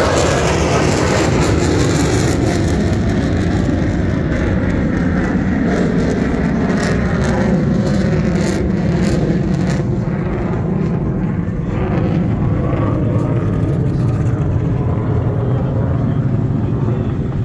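Loud, steady rumble of aircraft engine noise, easing off slightly toward the end.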